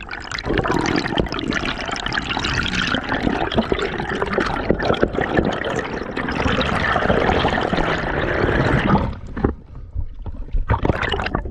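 Water sloshing and gurgling, full of small clicks and pops, easing off for a moment about nine seconds in before picking up again.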